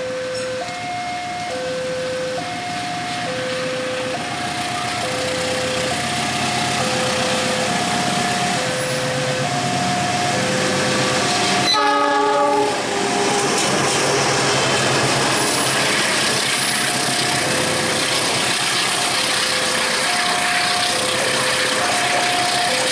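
A railway level-crossing alarm sounds an alternating two-tone electronic warning, a low tone and a higher one, each about half a second long. About twelve seconds in, a diesel locomotive gives a short horn blast as it reaches the crossing. Then the noise of the passenger carriages rolling past on the rails takes over, with the alarm still going underneath.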